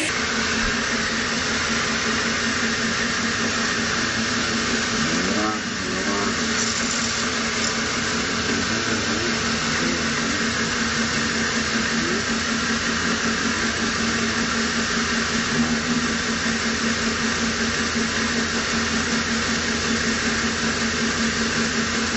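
Vertical band sawmill running with a steady, pulsing machine hum. About five seconds in there is a brief rising and falling sweep.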